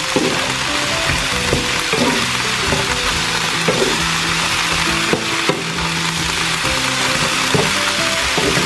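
Broccoli and eggplant cubes sizzling steadily in hot olive oil in a frying pan as they are sautéed, stirred with a wooden spatula that knocks and scrapes against the pan now and then.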